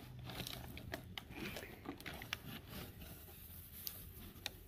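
Dog rummaging with its head inside a cardboard box: faint, scattered rustles, scrapes and light taps of cardboard and packing paper.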